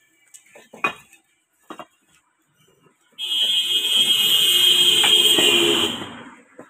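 A loud, steady, shrill alarm-like tone sounds for about three seconds, starting about three seconds in, with a rushing noise beneath it. A few faint taps come before it.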